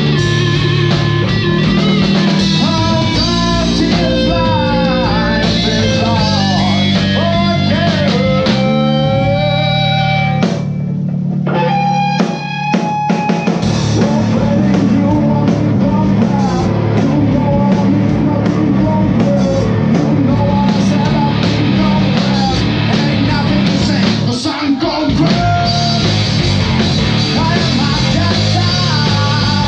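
Rock music from a band: an electric guitar playing bending melodic lines over a drum kit. About ten seconds in, the band drops out briefly and a few accented hits stand out, then the full band comes back in.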